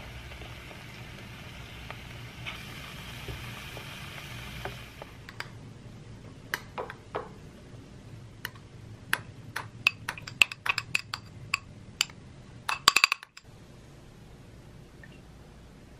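An egg sizzling as it fries in a small rectangular ceramic-coated pan for the first five seconds. Then a metal spoon clinks and scrapes against a glass bowl as cooked rice is scooped out into a wooden bowl, with a quick run of clinks about 13 seconds in that cuts off suddenly.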